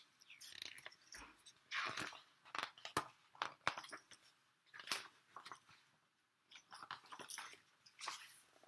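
Faint paper rustling and small clicks, as of a picture book's pages being handled and turned, in short scattered bursts.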